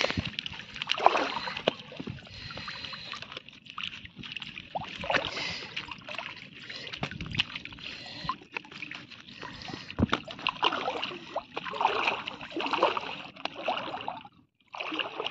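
Fish thrashing on a wet fine-mesh net at the water's surface, with irregular splashes and slaps of water as the net is handled.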